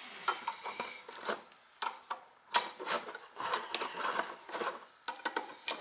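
Irregular clinks and knocks of metal tools and parts being handled while an oil burner is worked on.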